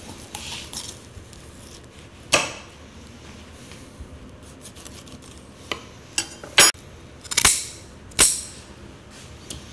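Knife cutting the head and tail off a red snapper: sharp knocks of the blade, one about two seconds in and a quick cluster of four in the second half.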